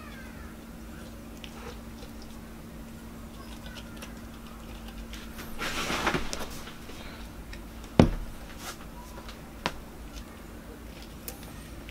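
Hands working grease onto the parts of a heavy cast-iron engineer's vice: quiet handling and rubbing, a brief rustle about six seconds in, and one sharp metal knock about eight seconds in, with a fainter click shortly after.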